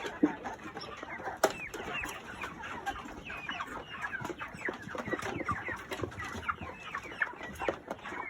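A flock of young broiler chickens peeping and clucking continuously while feeding, many short falling calls overlapping, with scattered sharp clicks among them.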